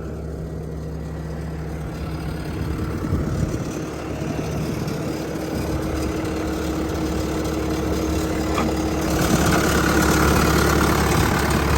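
Bobcat T750 skid steer's diesel engine idling steadily, growing gradually louder and louder again about nine seconds in, when a faint steady whine joins the engine sound.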